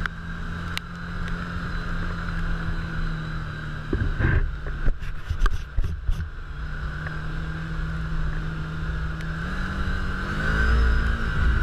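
Can-Am Commander side-by-side's engine running steadily along the trail, with a run of loud clunks and jolts from the machine bouncing over rough ground about four to six seconds in. Near the end the engine revs up.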